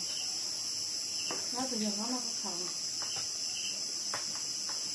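Steady high-pitched chorus of crickets, with a quiet voice speaking briefly about a second and a half in and a few light clicks.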